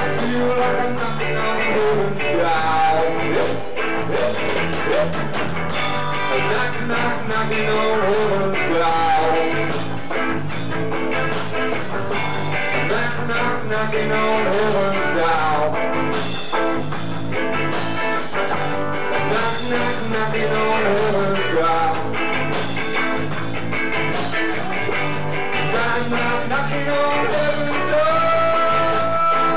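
Live rock band playing in a small room: electric guitar, bass and drum kit, with a lead line that bends in pitch over the top and holds one long note near the end.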